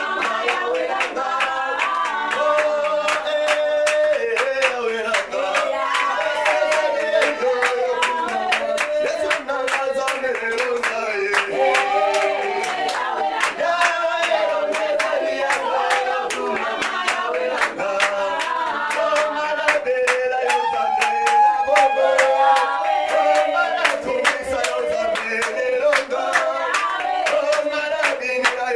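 A congregation singing a worship song together, with hand clapping running through it.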